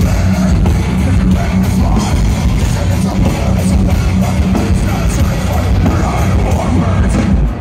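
Heavy metal band playing live through a big festival PA, with distorted guitars and drums, loud and bass-heavy as heard from within the crowd. The level dips briefly just before the end.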